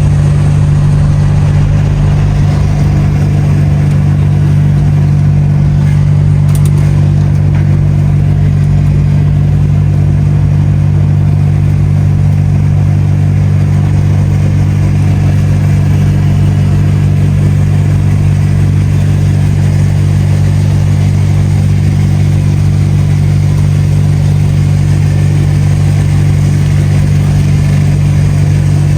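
DAF XF truck's diesel engine running at a steady drone, heard from inside the cab, with road noise underneath.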